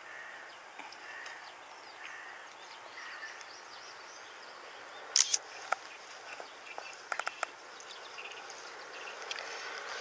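Outdoor ambience with small birds calling in short chirps throughout, and a few sharp clicks about halfway through, two close together, then a quick run of three or four a couple of seconds later; the clicks are the loudest sounds.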